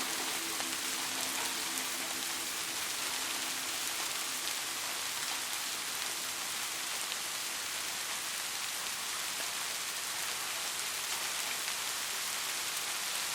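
Steady rain falling, a continuous even hiss of many drops. A faint low hum of a few steady tones fades out about halfway through.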